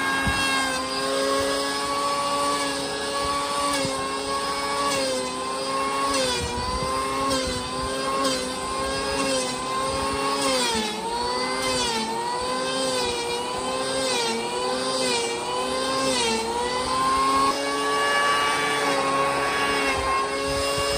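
Corded electric hand planer running with a steady motor whine. Around the middle its pitch sags and recovers several times as the blades bite into the solid wood slab.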